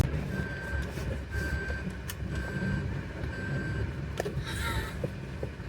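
Low rumble of a car, with a short high electronic warning beep repeating about once a second, four times, then stopping.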